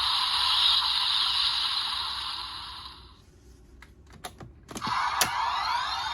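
Electronic sound effects from the DX X Geats toy transformation buckle's speaker: a noisy effect that fades out about three seconds in, then several sharp plastic clicks of the buckle's mechanism, and another sound effect starting about five seconds in.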